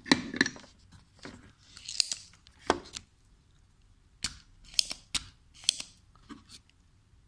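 A spring-loaded desoldering pump being handled and cocked: a string of sharp clicks and short hissing scrapes over a few seconds, then it goes quiet.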